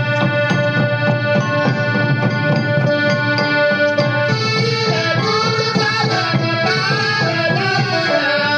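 Santali folk dance music: a steady drum beat under a melody of long held, accordion-like notes. About five seconds in, a wavering melody line joins.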